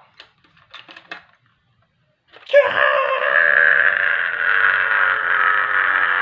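A few faint clicks and rustles, then about two and a half seconds in a loud, long, unbroken scream begins, its pitch slowly sinking.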